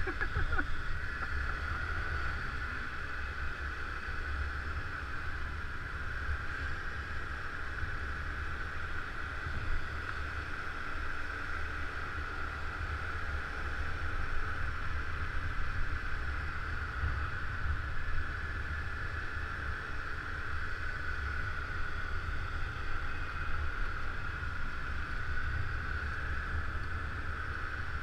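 Steady ride noise from a motor scooter under way: a constant low rumble with a steady hiss and wind on the microphone.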